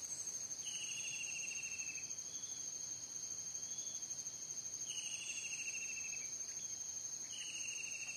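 Insects trilling in one steady high-pitched note. Three times, a lower pulsed call slides slightly downward, each lasting about a second and a half.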